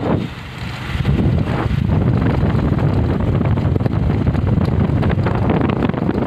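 Wind buffeting the microphone of a phone carried on a moving motorbike: a loud, steady rumbling rush, briefly softer just after the start.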